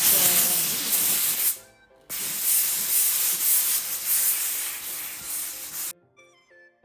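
Tefal IXEO QT2020 steam iron releasing steam with a loud hiss in two bursts, the first about a second and a half long, the second about four seconds, cutting off suddenly.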